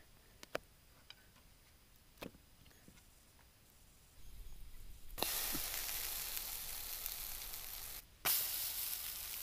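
A few quiet seconds with small clicks, then food frying in a cast-iron skillet over campfire coals: a steady sizzle that starts sharply about five seconds in and drops out for a moment near the end.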